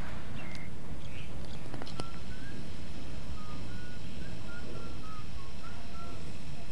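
Outdoor ambience: a steady low rumble, with a bird chirping in short repeated notes and a few sharp taps in the first two seconds.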